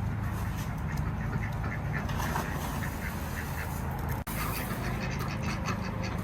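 Ducks quacking repeatedly over a steady low hum, with a brief dropout about four seconds in.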